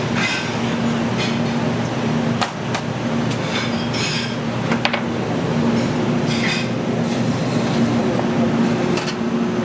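Steady restaurant-kitchen noise with a low hum, probably from the ventilation. Metal tongs and plates clink sharply a few times, about two and a half seconds in and again near five seconds, among brief hisses.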